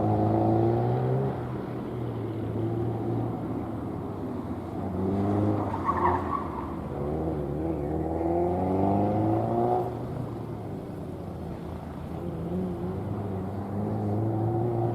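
A car engine revving up and falling back again and again as the car is driven hard through a gymkhana course, with a brief tire squeal about six seconds in.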